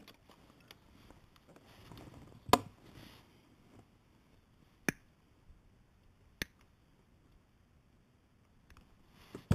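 Handling noise: a few sharp, isolated clicks or knocks, the loudest about two and a half seconds in, over faint rustling.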